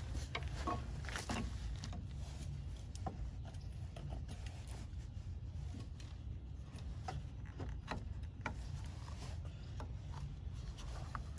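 Faint scraping and scattered light clicks of a pry tool working against the metal dust cap on a Kawasaki Mule's front wheel hub, over a steady low rumble.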